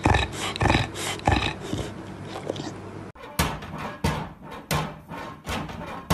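A dog grumbling in short repeated bursts, about two a second, which fade out. About three seconds in, a cat bats at a plastic cat flap in a door, and the flap clacks several times.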